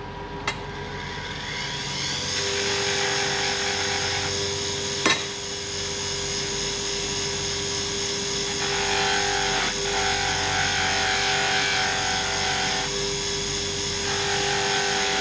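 Electric power tool running steadily while a stainless steel bolt is worked against it for polishing, a hissing grind swelling and easing several times as the bolt is pressed on and eased off. A sharp click about five seconds in.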